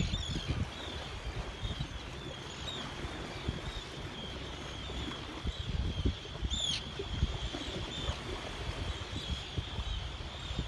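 Seabirds calling: many short, high calls repeating throughout, with one louder call sweeping downward about six and a half seconds in. Wind rumbles on the microphone underneath.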